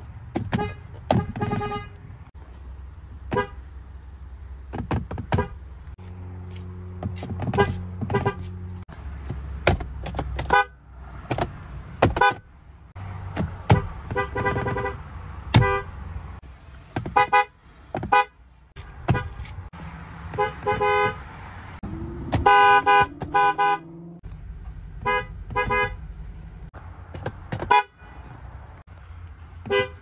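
Ram pickup truck horns honked from behind the wheel, several trucks in turn, in many short toots and a few longer blasts, over a low steady hum.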